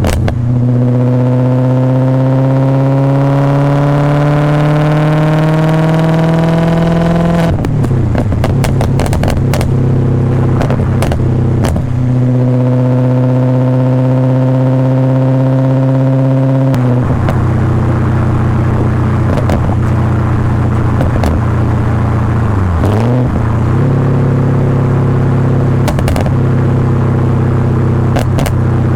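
BMW E39 540i's 4.4-litre V8 through a straight-piped exhaust with a Summit Racing muffler, pulling under acceleration with the note rising steadily for several seconds. About a quarter of the way in the note breaks off, then settles into a steady drone that holds level for the rest of the drive.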